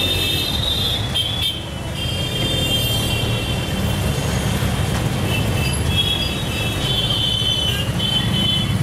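Auto-rickshaw (tuk-tuk) engine running with a steady low rumble, while vehicle horns honk again and again in street traffic.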